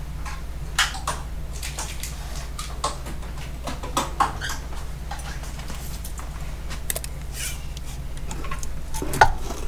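Scattered light clicks and rustles of handling as a steel tape measure is fetched and pulled out across an LED light bar, with a sharper click near the end. A steady low hum runs underneath.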